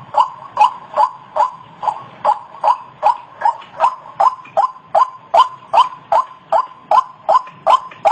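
White-breasted waterhen (ruak-ruak) calling: a harsh call note repeated in a steady rhythm, about two and a half calls a second.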